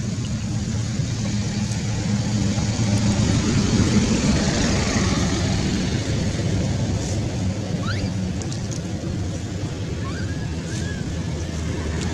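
Engine rumble of a nearby motor vehicle running steadily, swelling about four seconds in as if passing close, with a few short, high, rising squeaks later on.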